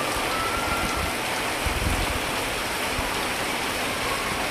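Heavy rain pouring onto a flooded street: a steady hiss of drops splashing into standing floodwater.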